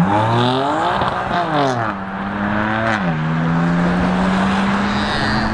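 Sports car accelerating hard past on the road, its engine note climbing and then dropping sharply at gear changes about a second in, just under two seconds in and about three seconds in, then holding a steady drone.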